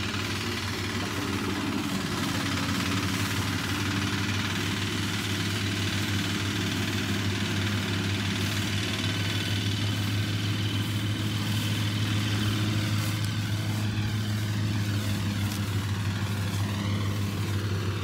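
Engine of a rice thresher running steadily in the paddy, a constant low drone.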